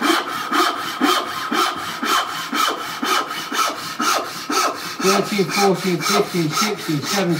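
Fine-toothed 22 TPI backsaw cutting into cherry by hand with quick, even rasping strokes. The teeth's excess set has just been hammered out, so it cuts a finer, thinner kerf.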